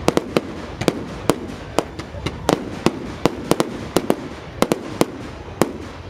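Fireworks display: a rapid string of sharp bangs and cracks from bursting aerial shells, about three a second at uneven spacing, over a steady background noise.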